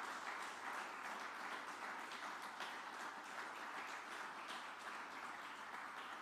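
Applause from a seated audience of a few dozen people: fairly quiet and steady.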